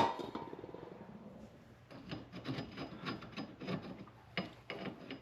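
A sharp click, then a run of irregular rubbing and scraping strokes as hand tools work at the washer on a C4 Corvette's rear wheel hub.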